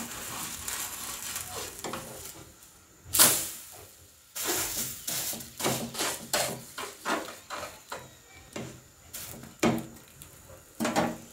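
Thin flour-batter crepe sizzling in a black wok while a steel spatula scrapes and knocks against the pan. There is one loud scrape about three seconds in, then a run of shorter scrapes through the second half.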